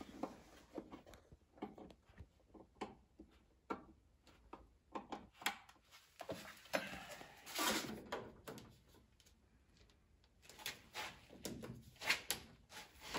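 Irregular light plastic clicks and taps with rubbing from hands fitting cable plugs into a manifold controller and pressing thermal actuators onto the manifold valves, which are not clipping on smoothly. A longer rustle of handling comes about halfway, then a short lull before more clicks near the end.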